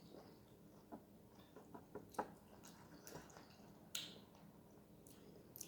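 Faint wet mouth sounds of someone chewing a sour lemon: scattered soft clicks and smacks, with a few sharper ones spread through.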